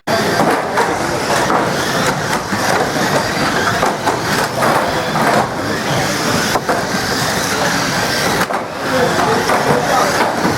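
Banger racing cars running on the track: a loud, constant din of engines with repeated knocks and bangs.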